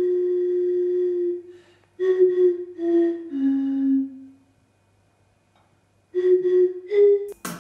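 Glass bottles blown across their mouths, sounding breathy, hollow, flute-like notes: one long held note, then three shorter notes stepping down in pitch. After a pause of about two seconds come two short notes, the second slightly higher.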